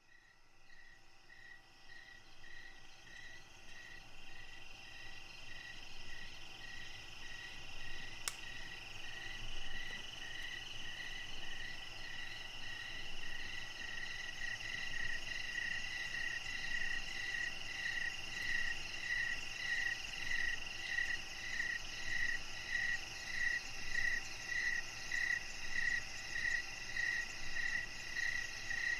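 Night-time chorus of chirping insects and frogs: steady high trilling with a chirp pulsing about one and a half times a second, fading in over the first several seconds. A single faint click about eight seconds in.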